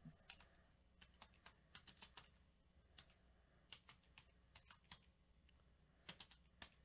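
Faint computer keyboard typing: scattered, irregular key clicks over a faint steady low hum, with a quicker cluster of clicks near the end.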